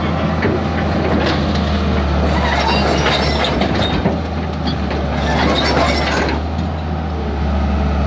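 Excavator's diesel engine running steadily while its loose steel track chain clanks and squeals as the machine moves onto it to refit the thrown track, most busily from about a second in until about six seconds in.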